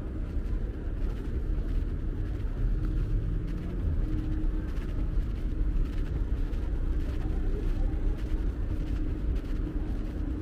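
Steady low rumble of city street traffic, with cars driving past close by.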